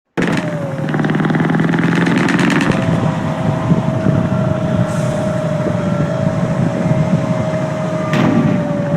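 Scania K124 bus diesel engine running steadily, with a steady high whine that comes in about three seconds in.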